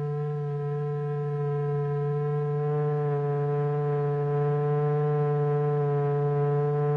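Steady electronic test tone with many overtones: the sound signal driving the vibrating material in a cymatics experiment. More overtones join about three seconds in, making the tone richer.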